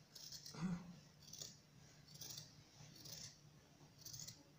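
Quiet snips of scissors cutting through a folded stack of fabric, about one cut a second.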